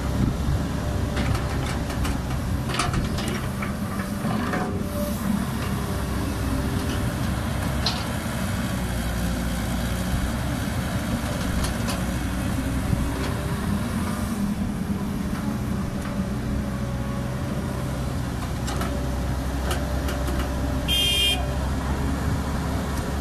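Caterpillar 312B hydraulic excavator's diesel engine running steadily under load while it digs and swings soil into a dump truck, with a few sharp knocks in the first seconds. A short high-pitched toot sounds near the end.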